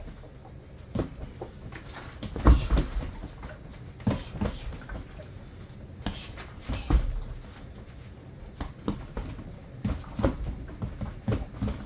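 Punches landing on a Century BOB XL freestanding training dummy's rubber torso: dull slapping thuds in short combinations a second or two apart, with a quicker run of hits near the end.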